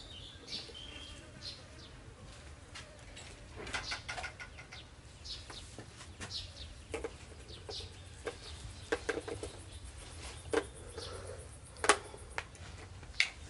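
Scattered light clicks and rustles of a baby monkey handling plastic bottles on a woven plastic mat, with a few faint bird chirps.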